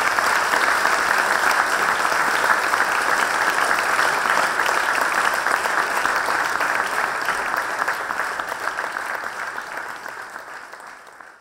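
Audience applauding steadily, a dense patter of many hands clapping, which fades out over the last few seconds.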